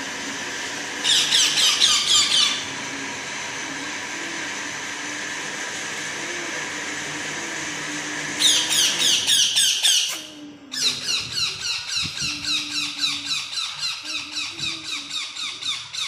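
Baby parakeets giving rapid, squeaky begging calls while being hand-fed. The calls come in quick bursts about a second in and again after eight seconds, then settle into a steady run of about four calls a second.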